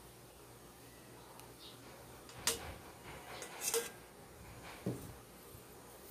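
A few light clicks and knocks of a metal sieve against a stainless steel bowl while batter is strained through it: one about halfway through, a small cluster just after, and another near the end, over a quiet background.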